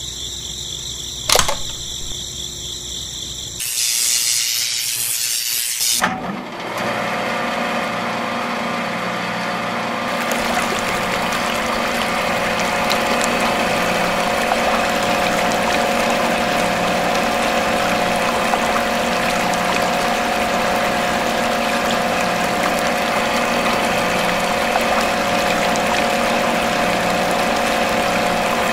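After a steady tone and a click in the first few seconds, a miniature electric motor starts about six seconds in and hums steadily as it drives two small belt-driven toy water pumps. Water pours and splashes from their spouts.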